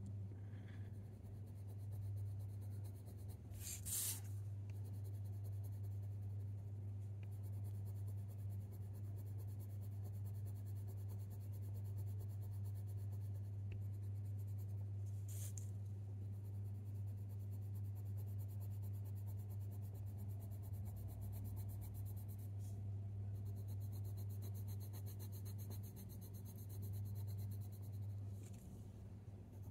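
Faber-Castell Polychromos coloured pencil (Cold Grey II) scratching across hot-press watercolour paper as fur is laid in, over a steady low hum, with a few faint clicks.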